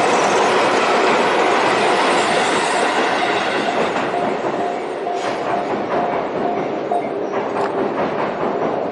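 Tobu Skytree Line train passing over a level crossing close by: a dense rumble of wheels with clatter over the rail joints, easing off about halfway through.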